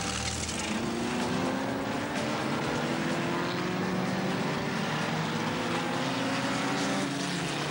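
Several vintage racing cars' engines running together at speed, their pitch climbing steadily as they accelerate.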